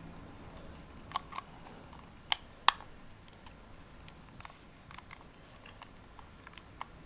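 Irregular plastic clicks and taps from handling a Westclox Model 1818 digital alarm clock, the two loudest close together a few seconds in, then fainter scattered clicks. No alarm beep sounds.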